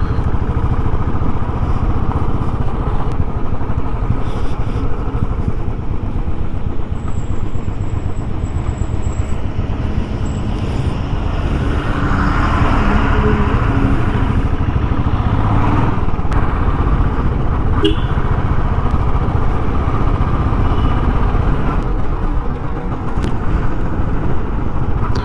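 Single-cylinder motorcycle engine running steadily in a low gear, engine braking down a steep, twisting descent. A rough rushing noise rises over it for a few seconds midway.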